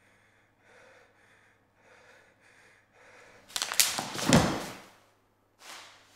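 Quiet, quick breaths at about one a second over a faint hum. Then a loud rustling rush with a few clicks lasts about a second and a half as a person darts across a wooden floor, and a shorter rustle comes near the end.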